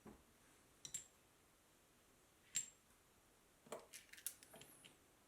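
A few light metallic clicks and taps from a bicycle freewheel's parts being handled and fitted as the bearing race goes back on. The sharpest click comes about two and a half seconds in, with a quick run of small ticks near the end.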